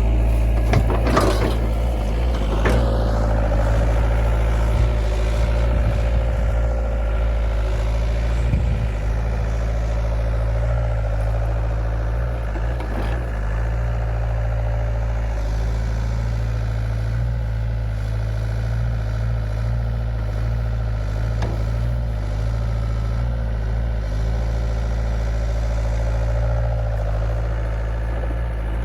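John Deere 60D excavator's diesel engine running steadily, with a few scattered knocks from the machine at work.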